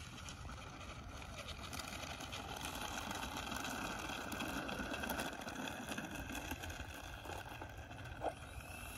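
Twin electric ducted fans of an E-flite A-10 RC jet whirring at low taxi throttle, getting louder around the middle as the model rolls past close by, then easing. A short click near the end.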